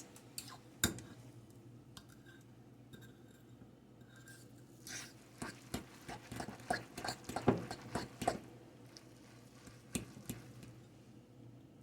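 A fork stirring noodles with cheese in a bowl: faint scattered clicks and taps of the fork against the bowl with soft wet squishing, busiest in the middle of the stretch.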